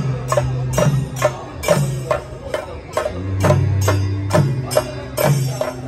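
Procession drums beaten in a steady rhythm, about two to three strokes a second, with jingling percussion and a low held melody that moves between a few long notes.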